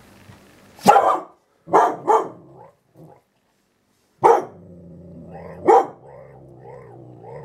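Young dalmatian–border collie cross barking at her own reflection: about five short, sharp barks, two of them in quick succession. In the second half she grumbles between barks with a long, wavering low growl, a 'talking' sound.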